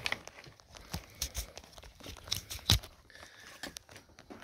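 Rummaging among tools and cords on a cluttered workbench: scattered knocks, clatters and rustles, the sharpest knock about two and a half seconds in.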